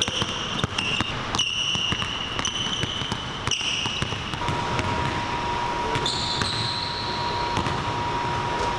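Several basketballs being dribbled on a hardwood gym floor, a quick run of sharp bounces, with sneakers squeaking in drawn-out high squeals in the first half and again about six seconds in. A steady high tone comes in about halfway and holds on.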